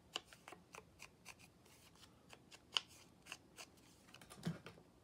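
Faint handling of paper and card pieces: scattered light clicks, taps and rustles as they are picked up and set down, with one sharper click about halfway through and a soft thump near the end.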